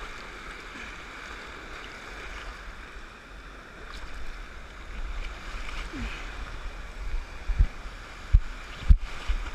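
Shallow surf washing and churning around a boogie board, heard from a camera right at the water line. A few short low thumps near the end as water and the board knock against the camera.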